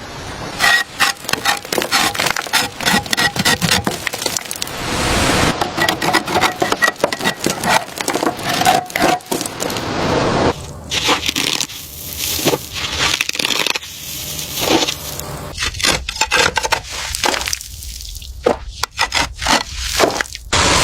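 Scraping and cracking of restoration work on an old boat: runs of sharp cracks and knocks, with a stretch of steady rasping scrape in the middle, then sparser knocks near the end.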